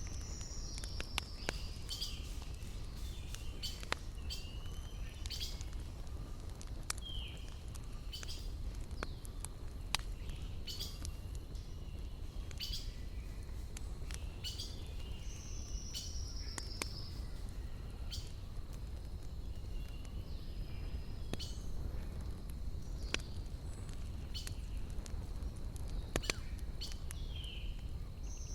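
Wood fire crackling with sharp, irregular pops over a steady low rumble, while forest birds sing: a falling whistled call comes about three times, roughly fourteen seconds apart, with short chirps in between.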